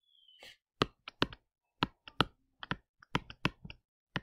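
Digital pen tapping and clicking on a tablet surface while handwriting on screen: a string of irregular sharp clicks, with a brief faint squeak at the start.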